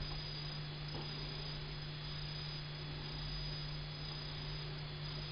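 Room tone: a steady low electrical hum under a faint even hiss, with one faint tick about a second in.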